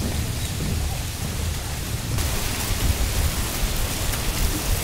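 Wind blowing through tree leaves: a steady rustling hiss with a low rumble of wind on the microphone, growing a little brighter about two seconds in.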